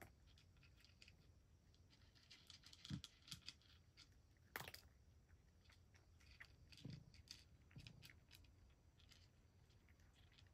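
Cat chewing its food: faint, irregular small clicks of eating, a little louder about three seconds in and again near five seconds.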